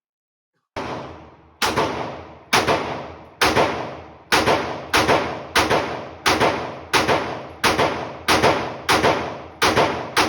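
Draco AK-pattern pistol firing a rapid string of about fourteen semi-automatic shots, roughly one every two-thirds of a second, starting just under a second in; each shot rings and trails off before the next.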